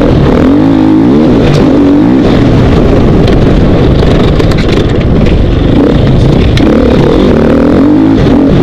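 2012 KTM 450 XC-W's single-cylinder four-stroke engine, loud and close, revving up and down repeatedly as the throttle is opened and closed riding a dirt trail.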